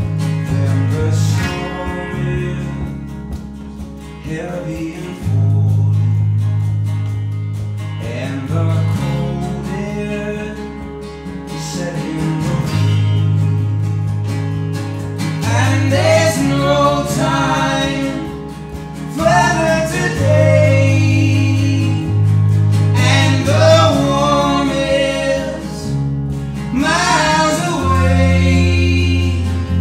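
A live band playing a song on electric bass, electric guitar and acoustic guitar, with held bass notes changing every second or two. Male singing comes in strongly about halfway through.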